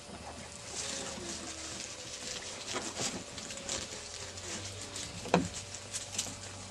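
Light rustling and pattering of Afghan hound puppies scampering through grass and dry fallen leaves, with faint, brief squeaky tones now and then and one sharp knock about five seconds in.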